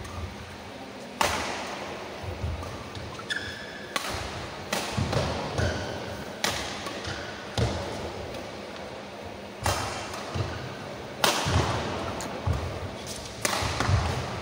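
Badminton rally: rackets striking the shuttlecock about nine times, one to two seconds apart, with players' feet thudding on the court and brief shoe squeaks between shots.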